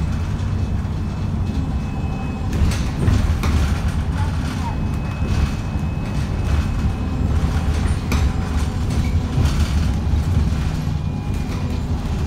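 Alexander Dennis Enviro350H bus engine pulling the bus along, heard from inside the passenger saloon as a steady low drone, with knocks and rattles from the bodywork, loudest about three seconds in and again about eight seconds in. The bus is being thrashed, and its engine is called unhealthy.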